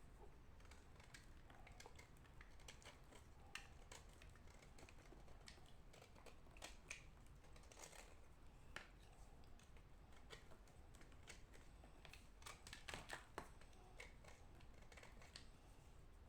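Faint, scattered sharp clicks and small cracks of lumps of dry edible clay being broken up, with a short cluster of them about three-quarters of the way through.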